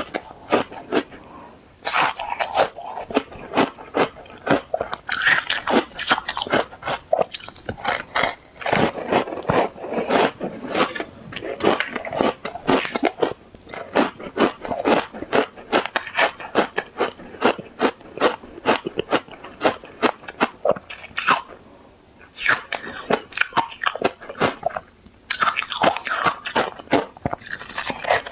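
Ice being bitten and chewed close to the microphone: rapid, loud crunching and crackling, with a few short pauses between mouthfuls.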